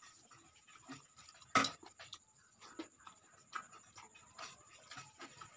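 Close-up eating sounds: wet chewing and lip smacks while fingers squish and mix dal and rice on a steel plate. The sounds come as scattered soft clicks, with one sharp smack or click about a second and a half in.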